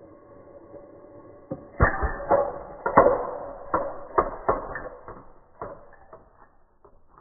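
A series of sharp knocks and clatters, about a dozen, the loudest near their start, coming more sparsely and fading toward the end, after a faint steady hum.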